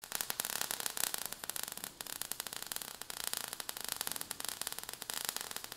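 Sparks crackling and hissing: a dense, steady crackle of many tiny clicks, a sound effect for falling sparks.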